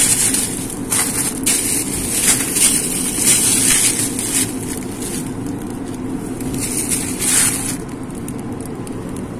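Plastic-wrapped lettuce heads rustling and crinkling in several bursts as they are handled and pulled from wire refrigerator shelves, over a steady hum.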